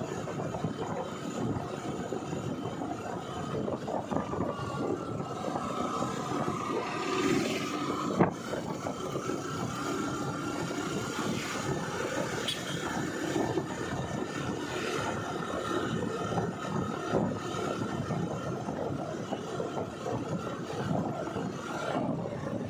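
Steady rush of wind and road noise with engine hum from a vehicle travelling along a road, with a faint steady whine and a single sharp knock about eight seconds in.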